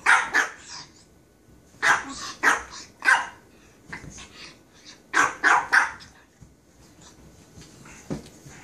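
Japanese Chin barking in play as a hand swipes at it, in three quick bursts of sharp barks a couple of seconds apart, with a faint last bark near the end.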